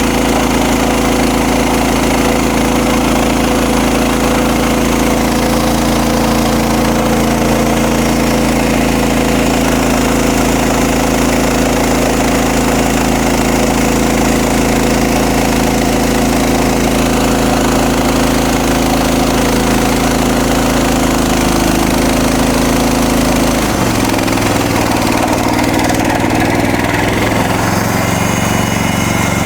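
Engine of a MechMaxx SM32 bandsaw sawmill running steadily while the blade cuts through a log. About 24 seconds in, the engine's note drops and wavers.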